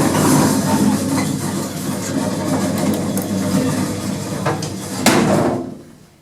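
Old Hammond & Champness lift running: a steady low mechanical hum with several sharp knocks and clicks, the loudest a little after five seconds in, then the sound falls away sharply just before the end.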